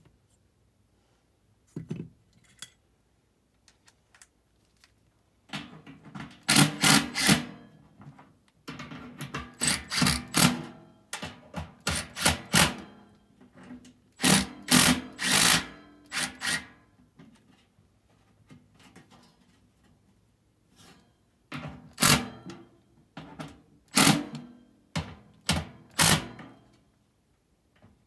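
Cordless drill/driver running in short repeated bursts as it spins the bolts on the motor mounting bracket of a furnace's ECM blower motor, with a quiet spell of a few seconds midway.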